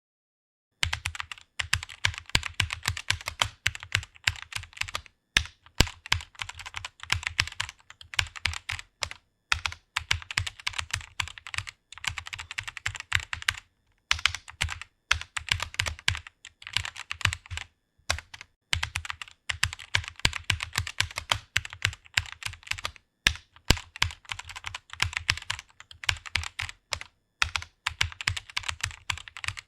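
Computer keyboard typing fast in long runs of key clicks, broken by brief pauses every few seconds. It starts about a second in.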